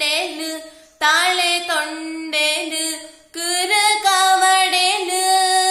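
A young woman singing solo without accompaniment, in three phrases of held notes with a wavering pitch, breaking off briefly about a second in and again about three seconds in.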